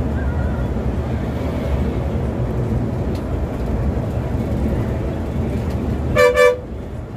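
Volvo B7R bus driving at highway speed, heard from inside the cab: a steady low rumble of its rear-mounted six-cylinder diesel engine and road noise. About six seconds in, a horn gives two quick toots.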